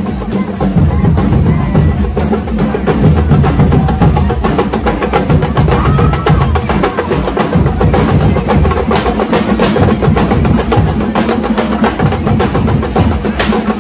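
Nasik dhol troupe drumming: large barrel drums beaten with sticks in a fast, unbroken rhythm. There is a heavy bass and sharp, rapid cracking strokes on top.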